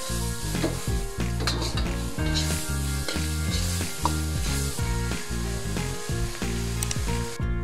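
Ground pork in soy and oyster sauce sizzling in a wok on high heat as a metal spatula stirs and scrapes it while the sauce reduces. Light background music plays underneath.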